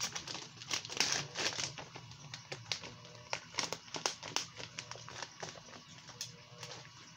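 Plastic soft-bait bag crinkling as it is handled, a run of small crackles and rustles that is busier in the first few seconds and thins out later.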